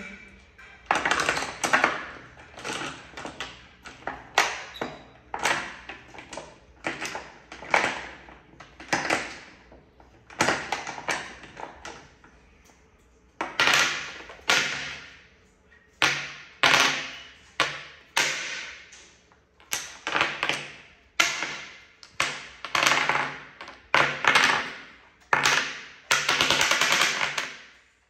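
Dominoes being picked up and dropped onto a tabletop by a monkey: irregular sharp clacks, one or two a second, each with a short ring, with a brief lull about halfway.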